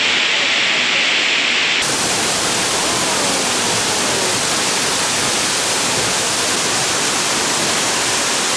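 Waterfall rushing, a loud, steady hiss of falling water. About two seconds in, the sound changes abruptly and becomes brighter and fuller.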